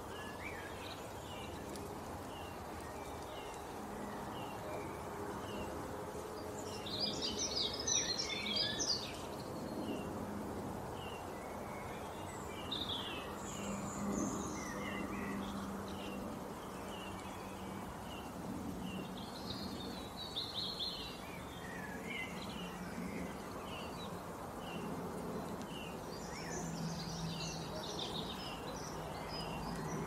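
Wild birds chirping and singing: a steady run of short high chirps, about one or two a second, broken by four louder bursts of song, over a low steady hum.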